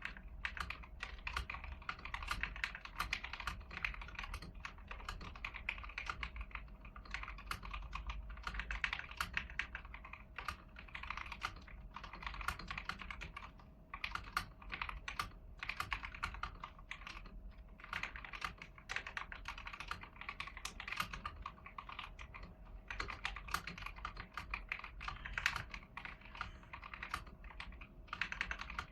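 Typing on an AIGO A100 mechanical keyboard with yellow switches, stock and unmodified: a continuous, fast, irregular stream of key clacks.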